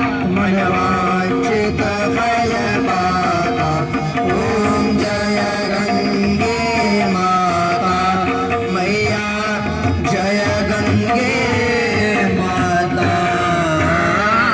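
Devotional aarti singing: a voice sings a winding, gliding melody over steady instrumental accompaniment.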